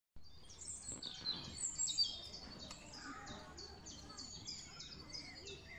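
Small songbirds chirping and singing, many short high calls following one another quickly, over faint outdoor background noise.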